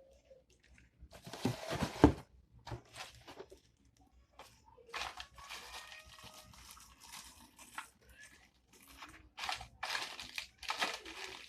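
Plastic packaging crinkling and rustling in several irregular bursts as vacuum cleaner parts are handled and unwrapped.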